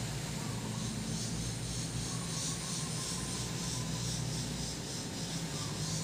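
Steady low rumble and hiss with a faint pulsing up high, as a Crown JH126 woofer's cone is driven slowly through an excursion test at a few hertz, a test tone too low to be heard as a pitch.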